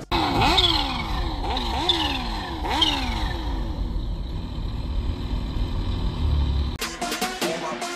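Kawasaki H2's supercharged inline-four blipped three times in quick succession, the pitch jumping up and falling back each time, then the revs sink slowly. Music cuts back in near the end.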